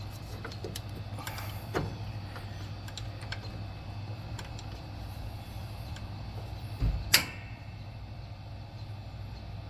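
Light clicks and taps of a metal pulley spacer and carriage bolt being worked into place on a lawn tractor's belt pulley, with a louder clunk about seven seconds in, over a steady low hum.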